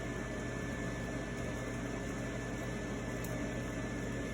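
Steady mechanical hum and fan-like whir from running equipment, with a thin high whine held at one pitch throughout.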